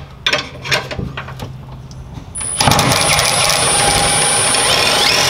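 A few light knocks, then about halfway in an electric drill starts and runs steadily under load, its 1/4-inch bit drilling the first pilot hole up through the truck bed from underneath, with a rising whine near the end.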